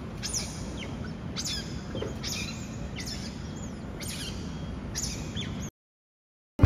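Smooth-coated otters calling with short, high chirps, about six in all, roughly one a second, over a low steady rumble. The sound cuts off abruptly near the end.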